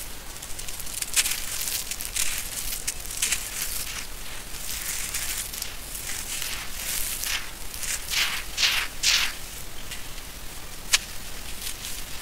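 Dry, grainy sand-cement mix being crushed in the hands and trickling through the fingers onto a gritty pile: a run of crunchy, hissing pours and crackles, with one sharp click near the end.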